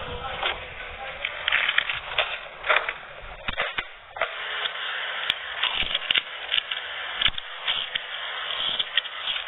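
Close-up crunching and chewing of crispy deep-fried pork intestine (chicharon bulaklak), a rapid, irregular series of crackling bites.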